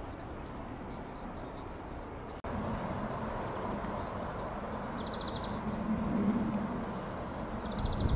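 A diesel locomotive's engine idling at a rail depot as a steady low hum, which comes in with an abrupt change in the sound about two and a half seconds in. Small birds chirp over it, with a quick even trill twice.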